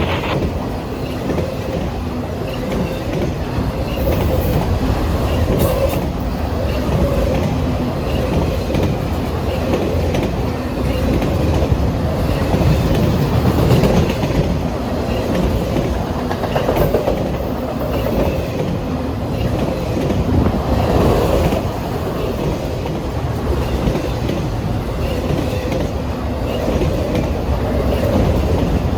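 Freight train cars rolling past: a steady, loud rumble of wheels on rail with a clickety-clack over the rail joints.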